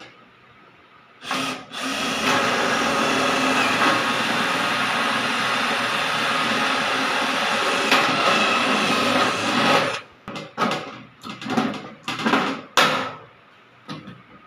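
Cordless drill drilling through white sheet-metal gutter flashing at the corner seam: a short spin, then running steadily for about eight seconds. A run of sharp clicks and knocks follows near the end.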